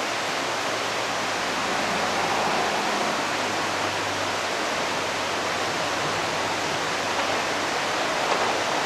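Steady rushing background noise, with a faint low hum underneath from the 115 series electric train approaching in the distance; it grows slightly louder toward the end.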